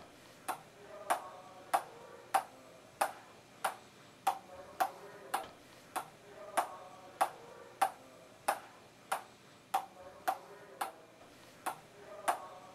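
A ping-pong ball bounced over and over in a steady rhythm, a sharp tock about three times every two seconds, several of them with a short ringing note.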